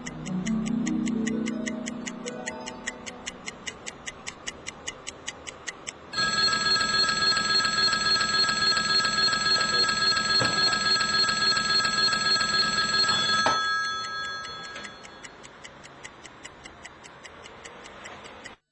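A clock ticking about four times a second. About six seconds in, an alarm clock starts ringing loudly and steadily for some seven seconds, then stops, and the ticking goes on alone.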